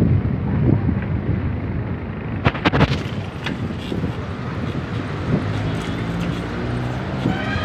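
Wind buffeting the microphone with a steady low rumble while the camera moves along the road, and a few sharp knocks about two and a half seconds in.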